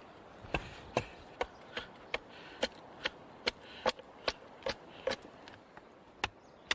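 Axe hewing a cedar paddle blank to shape: a steady run of quick, sharp strikes into the wood, about two or three a second, starting about half a second in.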